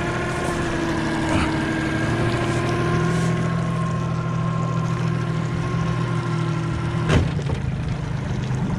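Yamaha 40 hp outboard motor running steadily at low speed, with a sharp knock about seven seconds in: the lower unit striking the gravel bottom in about a foot of water.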